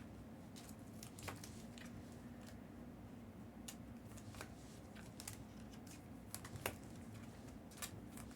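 Trading cards being handled and sorted by hand: scattered light clicks and taps of card edges and slabs, a dozen or so at irregular intervals, over a faint steady hum.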